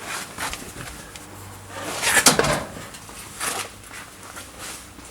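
Scattered handling noises: short rustles and light knocks, with a louder scraping clatter about two seconds in.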